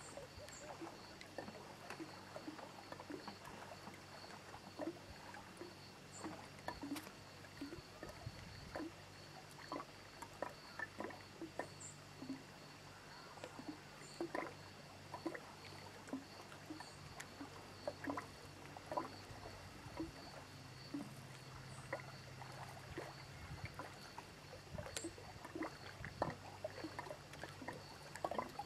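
Small lake waves lapping close by in soft, irregular splashes.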